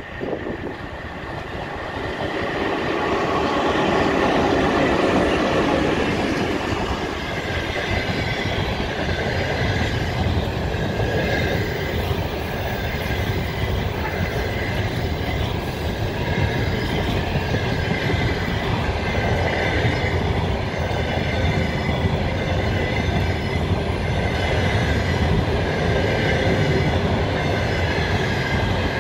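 Locomotive-hauled passenger coaches rolling past at speed, close by. A steady loud rumble and clatter of wheels on the rails builds over the first few seconds, with a high wheel squeal running through it.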